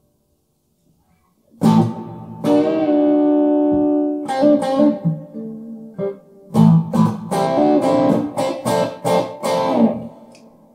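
Electric guitar with single-coil pickups played through a Hughes & Kettner Tubemeister 36 valve amp on its crunch channel, gain turned up and master turned down, giving a lightly overdriven tone with a nice breaking-up edge. After a second and a half of silence come a few chords, one left ringing for about a second and a half, then a run of quick strummed chords that stops near the end.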